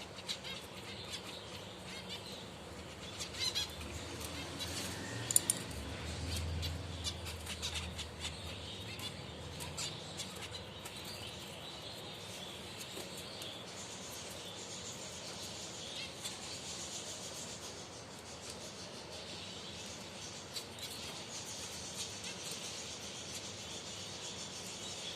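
Finches chirping: a continuous scatter of short, high chirps and twitters, with a few sharp taps or clicks, the loudest about five seconds in.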